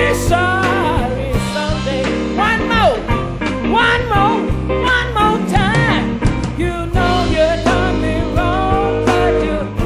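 Electric blues guitar solo on a Gibson Les Paul, a single lead line full of bent notes, over a full band with bass and drums.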